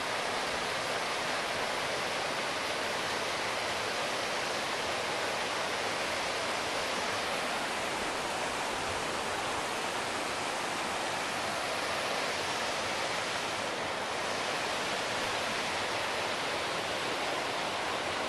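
Mountain creek rushing over boulders, a steady, unbroken hiss of white water.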